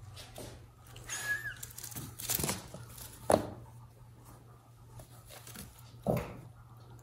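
Kittens scrabbling on a wicker basket: claws scratching and rustling against the woven sides, with a brief high squeak about a second in, a sharp knock a little over three seconds in and another thump about six seconds in.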